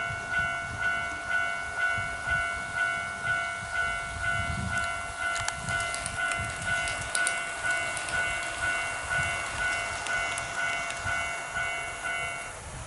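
A model railway level crossing alarm ringing its repeating electronic bell tone about twice a second, then stopping shortly before the end. An HO-gauge model train rumbles along under it with scattered clicks from the wheels on the track.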